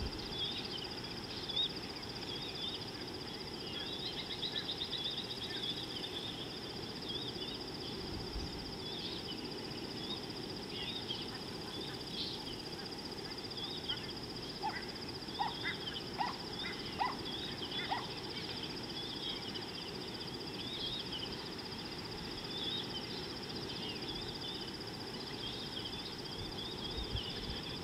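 Wild birds calling at a watering hole: many short, high chirps throughout, with four or five short, lower calls about halfway through. Beneath them are a steady high whine and a low background hiss.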